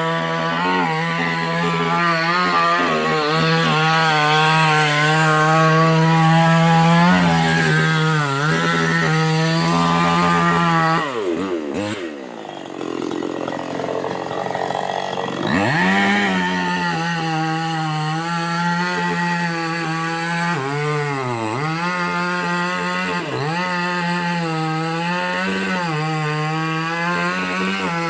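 Chainsaw running under load while cutting a palm trunk, its engine note sagging again and again as the chain bites into the wood. About halfway through it drops off for a few seconds, then revs back up and cuts on.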